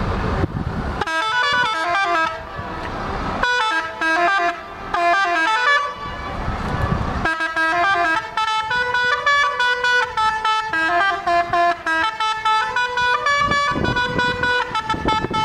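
Bus telolet horn, a multi-tone air horn, playing a quick stepping melody of bright notes. It starts about a second in and goes in phrases, with short breaks where a low engine rumble comes through.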